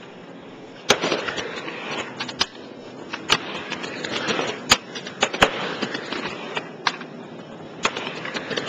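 Skateboard riding on a halfpipe ramp: the wheels roll with a steady rumble, broken by several sharp clacks as the board and trucks strike the ramp and its metal coping.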